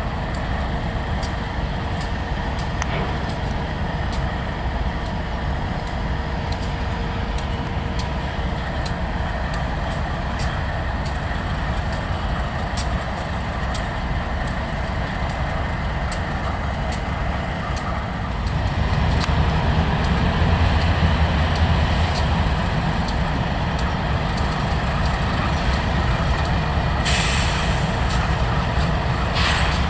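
Freight train rolling past with a steady low rumble and a run of regular clicks, growing louder about two-thirds of the way through. Two short hisses come near the end.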